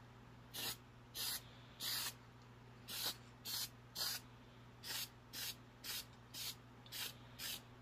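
Aerosol spray-paint can sprayed in about twelve short bursts of hiss, roughly two a second, misting a light dark coat over the white-primed lamp part.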